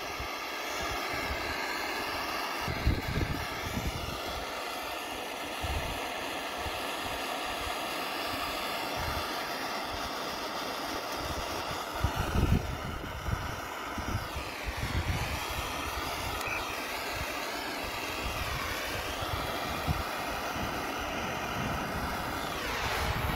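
Handheld gas soldering torch burning steadily, its flame playing on a copper-and-brass union fitting to heat it for soldering. A steady hiss with a whistling tone in it that wavers and dips in pitch about two-thirds through, cutting off at the very end.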